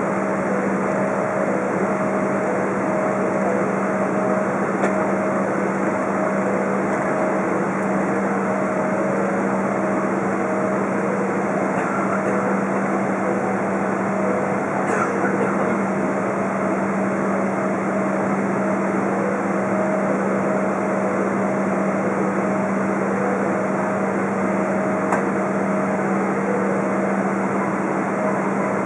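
Steady cabin noise inside a Boeing 777-200 taxiing after landing: the jet engines at idle and the cabin air system, with a constant low hum.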